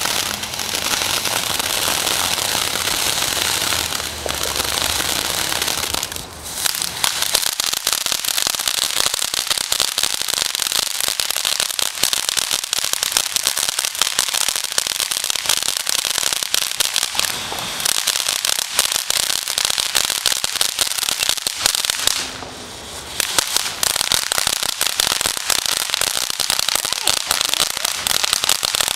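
Ground fountain fireworks spraying sparks: a steady, loud hiss thick with rapid crackling, which drops off briefly about six seconds in and again a little past twenty-two seconds.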